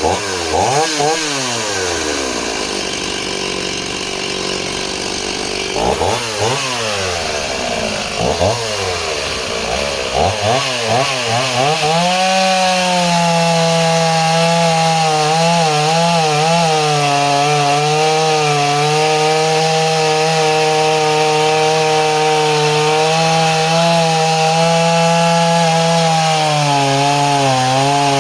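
Two-stroke chainsaw blipped up and down in quick revs for about twelve seconds, then held at full throttle as it cuts through a thick round of hard ash, its pitch wavering and dipping under load.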